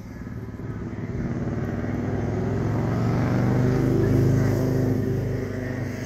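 A motor vehicle engine passing by, growing louder to a peak about four seconds in, then fading.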